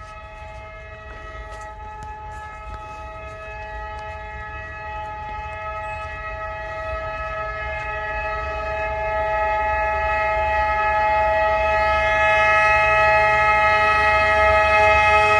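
Approaching train sounding its horn in one long, steady chord over a low rumble, growing steadily louder as it nears.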